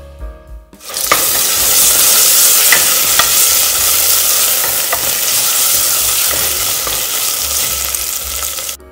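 Onions, herbs, whole spices and ginger-garlic paste sizzling in hot oil and ghee in a pressure cooker as a wooden spatula stirs them, with a few light knocks of the spatula against the pot. Background music plays for about the first second before the sizzle takes over.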